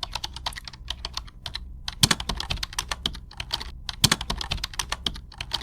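Rapid typing on a keyboard: a dense, irregular run of key clicks with a few heavier strokes about two and four seconds in, cutting off abruptly at the end.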